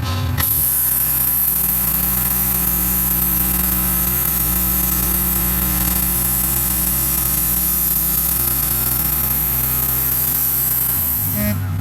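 Wood-Mizer LX150 bandsaw mill running steadily, its engine and blade sawing a slab off a large red oak log. The engine note shifts briefly near the end.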